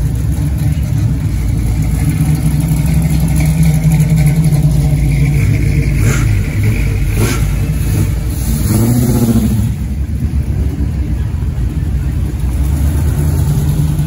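Classic cars' engines running as they drive slowly past one after another, with a short rev about nine seconds in and two sharp clicks shortly before it.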